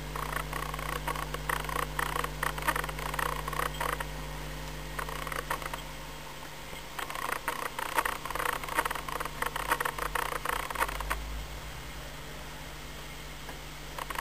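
Model Class 60 diesel locomotive and its wagons running on a model railway, the wheels clicking and rattling over rail joints and points in uneven spells, over a steady low hum.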